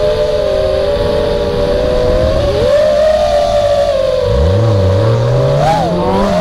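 Small quadcopter's electric motors whining, several close tones shifting pitch together as it manoeuvres, over a low rumble. From about four seconds in, a deeper tone climbs steadily.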